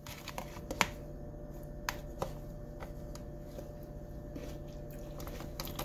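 A few light clicks of a spoon against a plastic food container over a steady low room hum.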